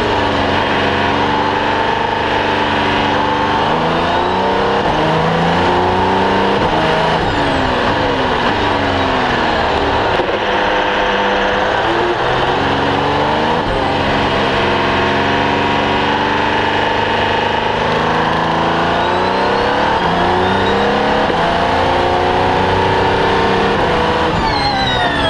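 Audi R18 LMP1 race car's 4.0-litre V6 turbodiesel heard from inside the cockpit, its pitch climbing hard under acceleration and dropping on braking, again and again around the lap. A higher whine climbs with it near the end.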